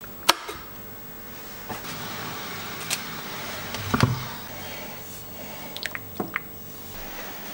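A mug of tea being made: liquid splashing into a ceramic mug over a teabag, with a heavy thump about four seconds in. Near the end a teaspoon stirs the tea, clinking sharply against the side of the mug several times.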